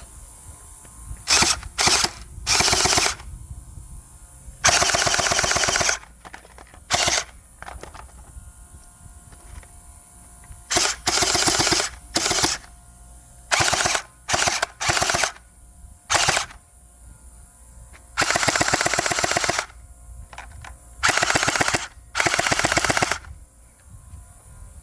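Gel blaster firing full-auto in more than a dozen bursts of rapid shots, some short, some lasting over a second, with pauses between them.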